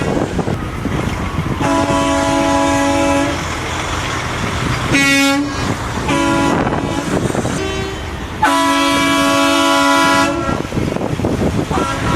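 Trucks sounding their air horns: a blast of about a second and a half, a few short toots, then a longer blast of about two seconds, over steady vehicle noise.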